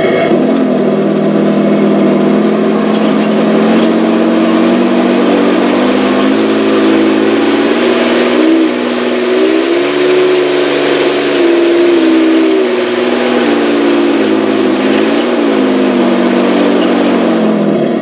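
Simulated tank engine sound from a Heng Long TK7.0 sound unit in a 1/16 RC Leopard 2 A6, played through the model's small speaker. The engine note climbs in pitch through the middle as if revving, drops back, rises briefly once more near the end and winds down, then stops.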